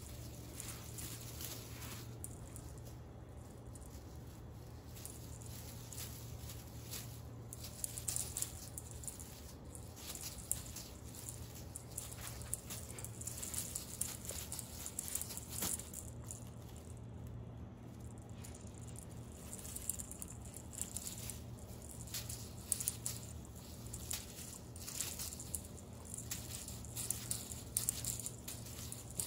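Crinkly rustling and light tapping in irregular flurries as a tinsel cat-teaser wand is swished and dragged over a rug and a cat bats at it, busier from about eight seconds in, over a steady low hum.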